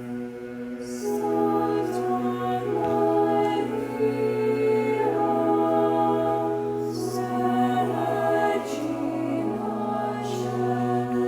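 Choir singing a slow sacred chant in long, sustained notes, over a low tone held steadily throughout.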